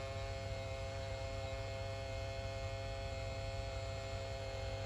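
Small battery-powered model-aircraft fuel pump running steadily with a constant hum while it pumps fuel into the plane's tank, its batteries running low, which the owner suspects.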